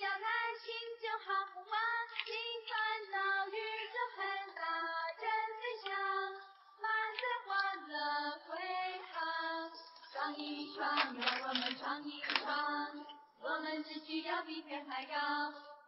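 A song with a high voice singing a melody of held notes that slide between pitches. From about ten seconds in, sharp clicks sound under the voice.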